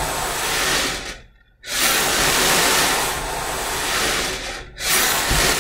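Steady, loud hiss like rushing air, cutting out suddenly to near silence for a moment about a second and a half in and dipping again near the end.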